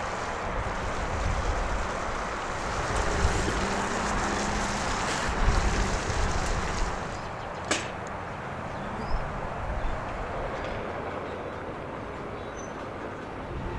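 Pieces of shark meat sizzling in oil in a steel frying pan, a steady frying hiss with a low rumble beneath it. A single sharp click comes a little past the middle.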